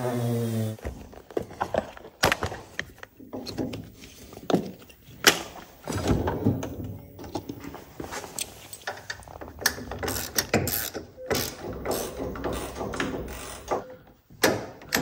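A power grinder on the boat hull cuts off under a second in. Then come a series of sharp metallic clicks, clanks and short ratcheting rattles as a tie-down strap and fittings are hooked to the boat trailer.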